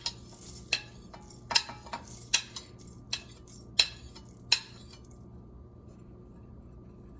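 Spoon clinking against the mixer jar as coriander seeds are tipped in: about eight sharp clinks over four and a half seconds, then only a faint steady hum.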